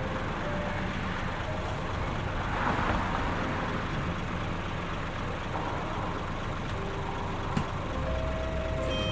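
Combine harvester running steadily in the field: a low engine rumble under a rushing noise, swelling briefly about three seconds in, with one sharp click near the end.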